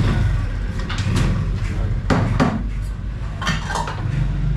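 Metal ladle knocking and scraping against a stew pot and pouring broth into a bowl: a handful of clinks and clatters, the loudest about two seconds in and again near three and a half seconds, over a steady low rumble.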